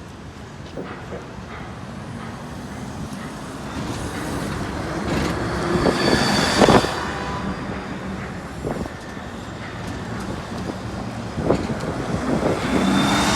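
Diesel-electric hybrid city buses passing in street traffic. The sound swells as one goes by close about six seconds in, with a faint high whine at the loudest point, and grows again as another vehicle approaches near the end.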